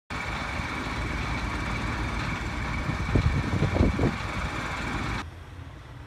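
Fire engine's motor and water pump running steadily, with a constant high whine over a low rumble and a few low thumps a little past halfway. The sound cuts off abruptly about five seconds in.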